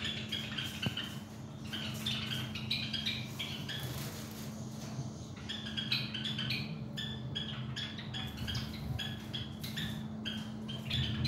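Nestling birds making rapid, high squeaky calls in short runs, over a steady low hum.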